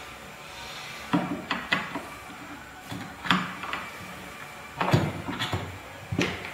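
Plastic parts knocking and clicking as a white plastic end cap is fitted by hand onto the cylindrical plastic housing of a magnet motor-generator: a string of irregular knocks, the loudest about five seconds in.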